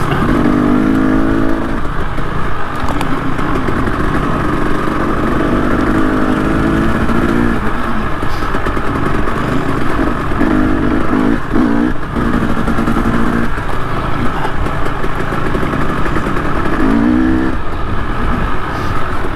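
Trail motorcycle being ridden, its engine running continuously, with the engine note swelling several times as the throttle is opened and eased.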